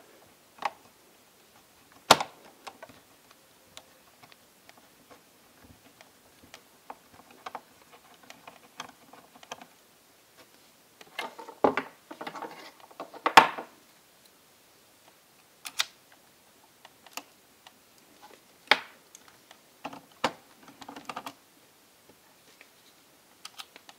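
Scattered clicks, knocks and light rattling of plastic laptop parts and cables being handled as the display assembly is worked free, with a sharp click about two seconds in and a busier stretch of clatter about halfway through.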